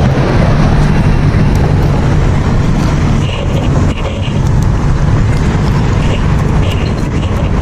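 A vehicle engine running steadily with a low hum, under the wash of roadway traffic and wind noise; the level dips briefly about four seconds in.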